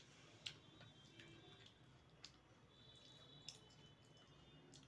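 Near silence with a few faint short clicks, about three: fingers handling and cracking crisp golgappa puri shells over a steel plate.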